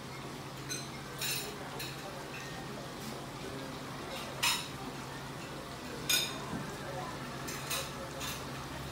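Steady hiss of water running down an indoor glass water-wall feature over a steady low hum, with about eight short sharp clinks of tableware scattered through, the loudest two near the middle.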